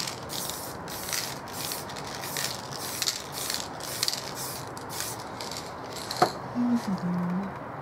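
Aerosol spray can hissing in short, quick bursts, about two a second, as paint is sprayed. The spraying stops about six seconds in and is followed by a sharp click, the loudest sound, then a brief low hum.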